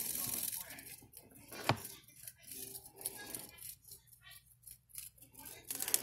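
Short, irregular scratching and scraping on a plastic tub, with one sharp tap about a second and a half in.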